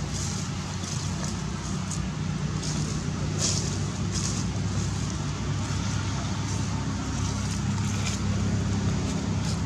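A steady low engine hum runs throughout, with several brief high-pitched sounds scattered over it.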